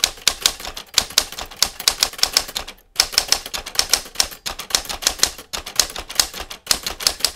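Typewriter keys clacking in quick, uneven strokes, a typing sound effect matched to text being typed out, with a short pause about three seconds in.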